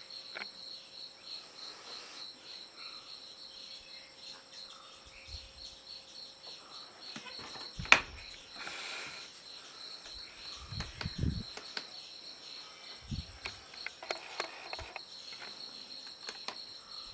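Crickets chirping steadily in the background, with one sharp click about eight seconds in and a few faint knocks later on.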